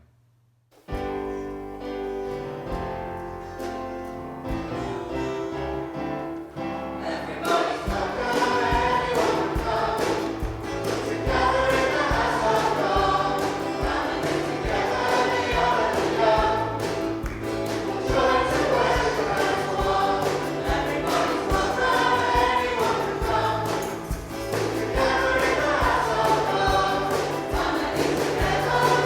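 A Christian worship song sung by a group of voices with band backing. It starts about a second in with a soft intro, and a fuller arrangement with a steady beat comes in about seven seconds in.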